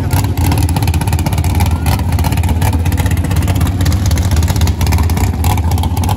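Front-engine dragster's big V8 idling through open exhaust headers: a loud, steady, choppy rumble.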